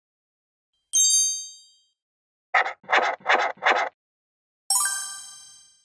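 Logo-animation sound effects: a bright, high chime that rings and fades, then four quick scratchy pencil-stroke sounds as the four corners of a frame are drawn, then a second, fuller chime that rings down slowly.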